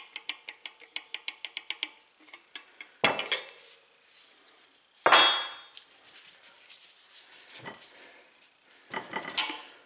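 Steel wrenches clinking against a bicycle wheel's hub and the workbench: a quick run of light clicks for about two seconds, then a few louder metal clanks with a brief ring, the loudest about five seconds in.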